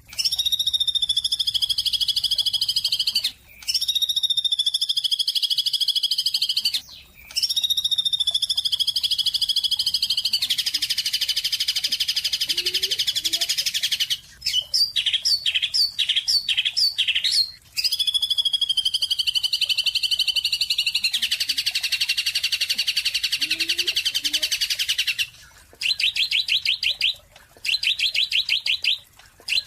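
A bird calling loudly and almost without pause. There are long high calls of about three seconds each that drop slightly in pitch, buzzy trilled stretches, a run of quick separate notes about halfway through, and choppier trills near the end.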